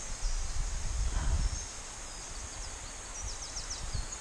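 Forest ambience: a low, uneven rumble through the first second and a half, then a small bird's rapid series of short, high, falling chirps near the end.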